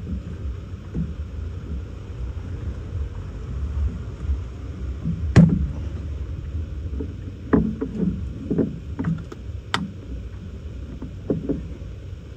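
Scattered knocks and clicks of tools and parts being handled during hand repair work, the sharpest about halfway through and a quick cluster soon after, over a steady low rumble.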